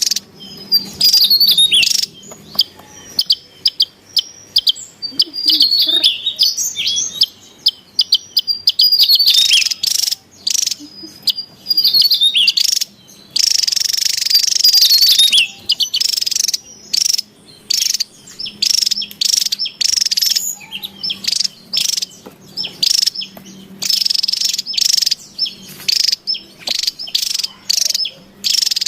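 Javan tesia calling busily: a rapid run of high, sharp chirps and short trilling notes, repeated with only brief pauses.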